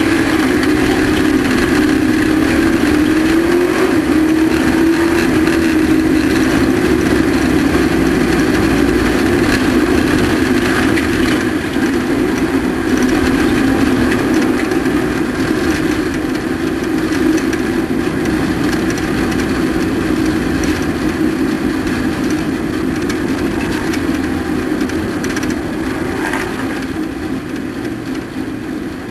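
Race truck engine running hard at steady high revs, with small rises in pitch in the first few seconds. It grows somewhat quieter over the second half.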